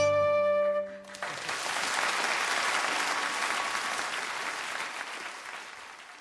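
A traditional Irish ensemble of fiddle and harp ends on a held chord that stops about a second in; then an audience applauds, the clapping tailing off toward the end.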